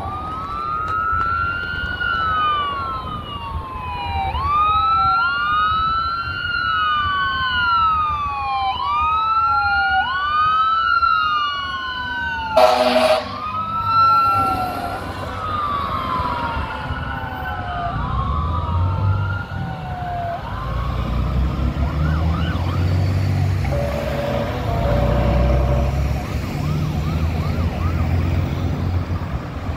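Fire engine siren wailing, each sweep rising and then falling about every two seconds, with a short air-horn blast about halfway through. The siren then fades away and a low engine rumble takes over near the end.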